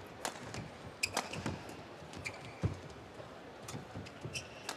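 Badminton rally: several sharp racket strikes on the shuttlecock, short squeaks of shoes on the court mat, and thuds of footfalls, the heaviest about two and a half seconds in.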